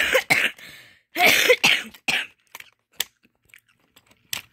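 A person coughing twice in rough bursts, followed by a few single sharp clicks.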